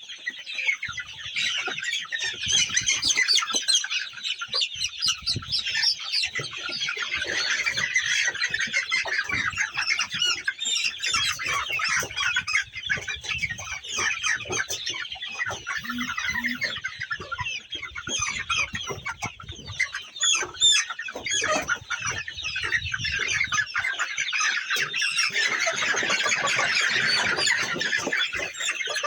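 A flock of chickens clucking and calling continuously, many birds at once in a dense overlapping chatter.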